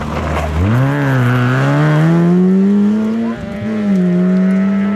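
Rally car engine accelerating hard, its pitch climbing steadily for about three seconds, dropping briefly as it changes gear, then holding high.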